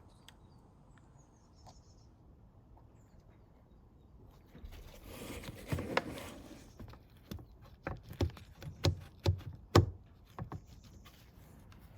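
Plastic clicks, knocks and rustling as a new cabin pollen filter is pushed and seated into its housing. It starts about four and a half seconds in, with a run of sharp knocks between about five and ten seconds in.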